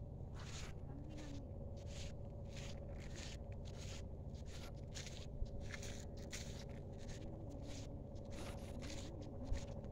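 Footsteps on a dry sandy path at a steady walking pace, about two to three steps a second, over a steady low rumble.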